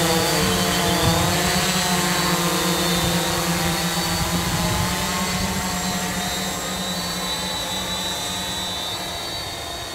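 Electric octocopter in flight, its eight propellers and motors humming steadily with a thin high whine on top, slowly getting quieter as it moves off.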